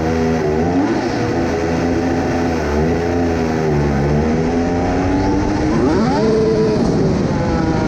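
Mercedes Formula One car's V6 turbo-hybrid engine heard from the onboard camera as the car drives slowly out of the garage and down the pit lane, the engine note rising and falling with the throttle and climbing sharply about six seconds in.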